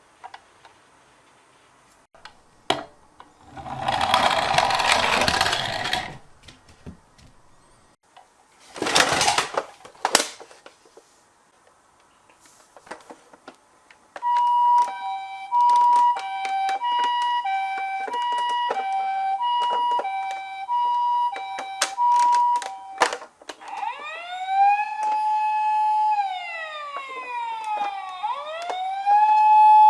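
A toy ambulance minicar's electronic siren: short clicks and two brief rushes of noise, then from about halfway a two-tone high-low 'pee-po' siren alternating about once a second, switching near the end to a wailing siren that rises, holds and falls twice.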